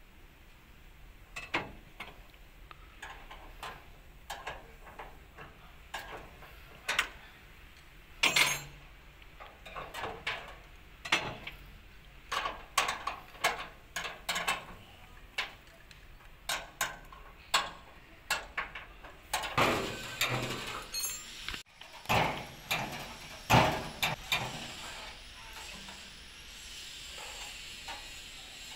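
Wrench working the hinge bolts on the steel side door of a Cat 320 GC excavator: a long run of irregular metallic clicks and clanks, with a few louder clanks along the way.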